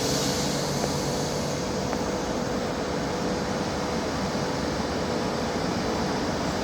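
Steady running noise of a train: an even rumble and hiss with a thin steady whine, slightly brighter in the first second or so.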